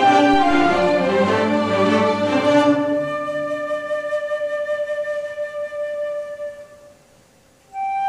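A string orchestra plays with a solo flute. About three seconds in the ensemble drops out, leaving one long held flute note that fades away. After a brief silence the flute starts again near the end.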